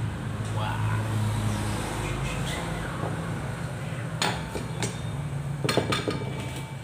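Several sharp clinks of utensils and dishes, one about four seconds in and a quick cluster near six seconds, over a steady low hum.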